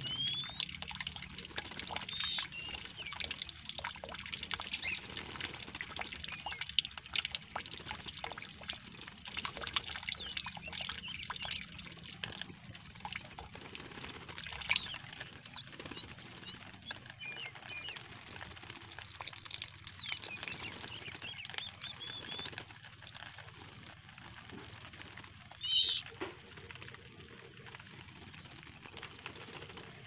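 Oriental magpie-robins fluttering and scuffling in a wire cage as a pair is introduced for breeding: repeated wing flaps and rustling against the bars, with short high chirps and trills. A louder call comes near the end.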